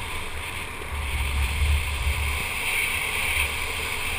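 ATV engine running while riding, with wind rushing across the helmet camera's microphone in a steady, uneven low rumble.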